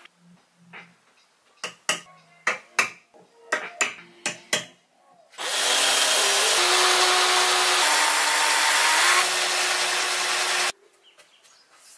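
A run of about eight sharp taps, then a Black+Decker cordless drill runs steadily for about five seconds, boring a hole into the mahogany frame, and stops abruptly.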